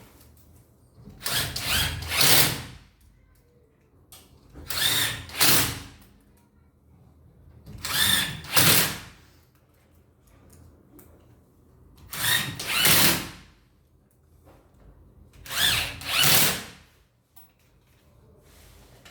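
Electric drill-driver driving screws into a wardrobe's back panel: five separate runs about three to four seconds apart, each lasting about a second and a half and rising in two pushes.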